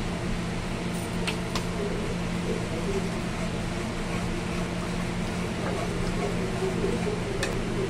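Steady low mechanical hum while thick curry gravy is stirred in an aluminium kadai, with a few light clicks of the metal spatula against the pan.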